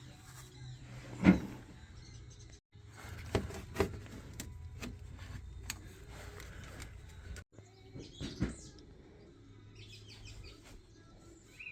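A few sharp knocks and clunks from tools and parts being handled during an oil change, the loudest about a second in, with birds chirping in the background, clearest near the end.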